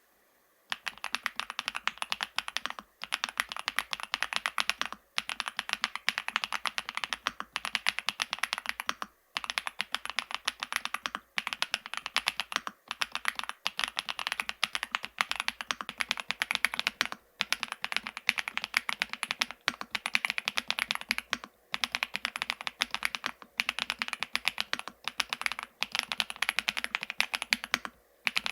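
Typing on an FL-ESPORTS Geo75 full-aluminium mechanical keyboard with Kailh x Funkeys BCP linear switches: fast, continuous keystrokes in runs broken by short pauses about every two seconds.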